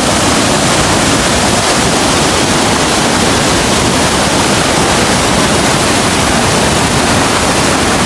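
Rhine Falls waterfall: a steady, loud rush of falling water that does not let up.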